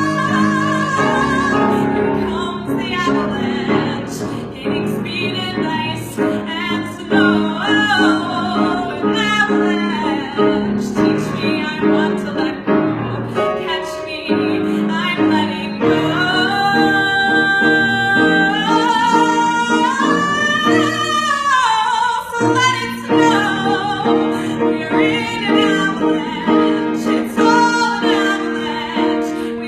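Female voice singing long held and sliding notes without clear words over piano accompaniment, with a long rising phrase about two-thirds of the way through.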